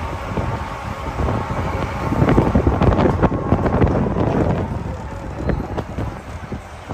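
City traffic noise with wind buffeting the microphone. There are a few knocks and clatters in the middle, where it is loudest.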